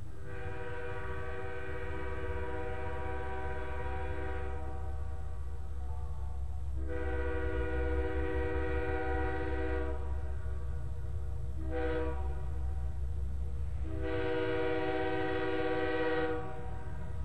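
Locomotive air horn sounding the grade-crossing signal of two long blasts, a short one and a final long one, over a steady low rumble.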